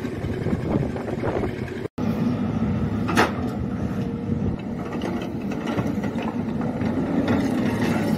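Crawler excavator's diesel engine running steadily under load while it digs and swings its bucket of soil. A brief sharp sound comes about three seconds in, and the sound cuts out for an instant just before it.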